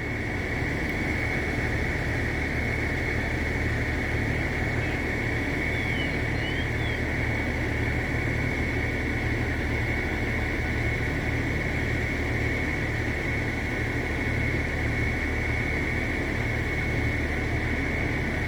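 A steady machine drone with a low hum and a constant high-pitched whine, unchanging throughout.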